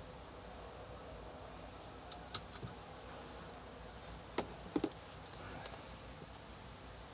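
A handful of short, sharp clicks and taps, two small clusters a couple of seconds apart, over a faint steady background hum.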